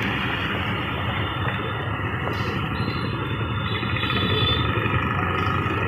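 Small auto-rickshaw engine running steadily, heard from inside the open-sided cab, under a continuous hiss of rain and wet-road traffic.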